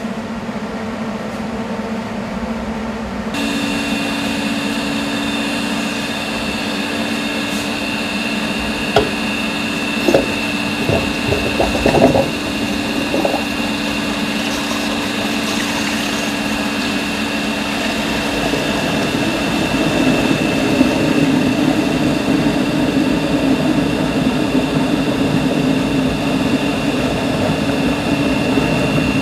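EDM machine's dielectric pump switching on about three seconds in and running steadily with a hum and a high whine as it fills the machining chamber with dielectric fluid. A few knocks come around ten to thirteen seconds in.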